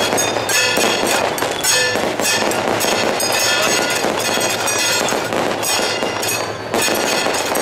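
A string of firecrackers going off in rapid, continuous cracks, with ringing metal percussion underneath, briefly easing near the end.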